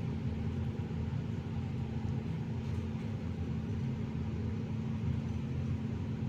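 Steady low rumble with a faint hum, unchanging throughout, with no distinct event.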